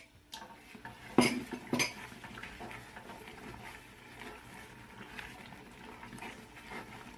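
A wooden spoon stirring a thick meeso paste in a stainless steel pot. It knocks sharply against the pot twice, at about one and two seconds in, then scrapes and stirs steadily through the sticky mixture.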